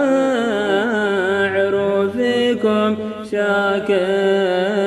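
A voice singing a long, drawn-out, ornamented melodic phrase of an Arabic devotional qasida, its pitch sliding and wavering between the sung lines of the poem.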